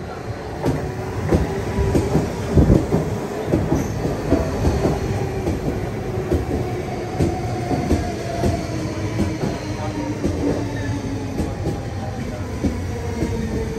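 DSB S-train electric multiple unit pulling into a station platform: its wheels click over rail joints, thickest in the first few seconds, under a whine that falls slowly in pitch as the train slows.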